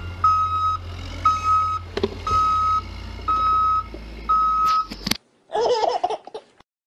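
Box truck's reversing alarm beeping five times, evenly at about one beep a second, over a low rumble. About five and a half seconds in, a short burst of a voice follows.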